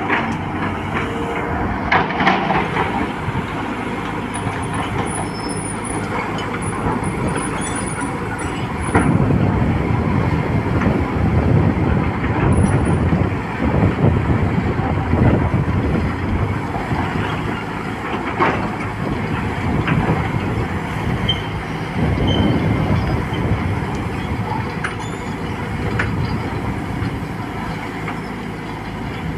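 Volvo excavator working: its diesel engine runs steadily and swells in surges under hydraulic load, with a few sharp clanks.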